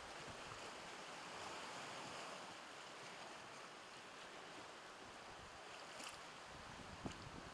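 Steady hiss of sea surf washing against a rocky shore, with a short click near the end.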